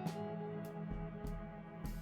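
Instrumental background music: guitar over a steady beat.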